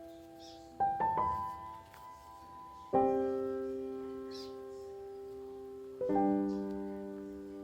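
Slow, soft piano background music: broken chords struck about every three seconds, each left to ring and fade.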